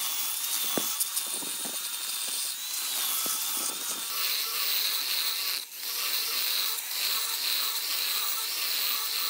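Electric chainsaw cutting into an old wooden railway sleeper: a steady high whine that wavers in pitch as the chain bites. A few small clicks come in the first few seconds, and the sound drops out briefly about halfway.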